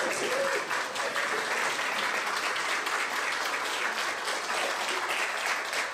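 Wedding guests applauding steadily, many hands clapping at once.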